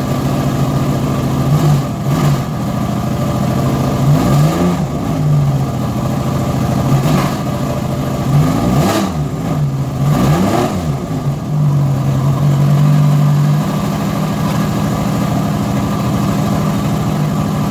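Ferrari V8 idling while still cold after a start from three months of sitting, blipped several times so the revs rise and fall briefly, then settling back to a steady idle near the end.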